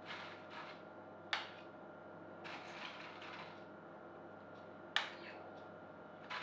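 A spoon scraping cream cheese out of a bowl and dabbing it onto tortilla chips, with two sharp clinks of the spoon against the dish, about a second in and again near five seconds.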